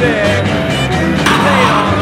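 Rock music soundtrack with a sung or bending lead line, and a sudden burst of noise a little over a second in.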